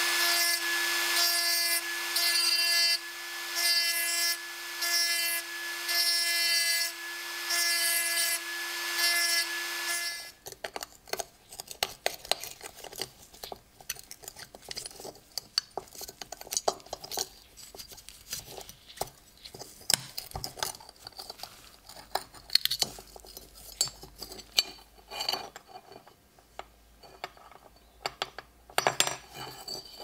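Small rotary tool with an abrasive grinding stone, its motor running with a steady whine while the stone grinds rust off a metal belt buckle, the grinding swelling and fading about once a second. The tool stops about ten seconds in, followed by small scrapes and clicks as the metal buckle parts are handled and worked by hand.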